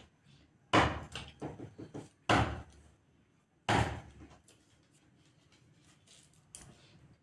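Fresh cauliflower being cut into florets: three sharp, crisp cracks about a second and a half apart as the stems snap, with lighter clicks between them.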